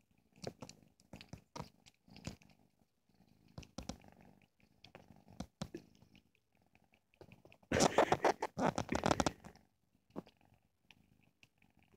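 Tabby kitten purring while suckling and nibbling on a fingertip, with scattered small clicking mouth sounds. A louder stretch of scratchy noise comes about eight seconds in and lasts under two seconds.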